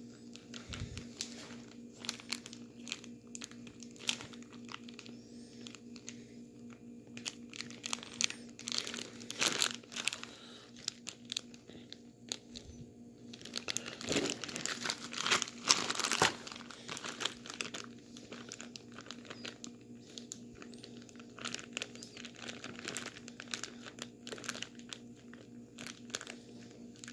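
Plastic bag packed with ice and salt crinkling and rustling as it is handled and shaken to freeze a drink into slush. The crackling comes in irregular bursts and is busiest a little past halfway through.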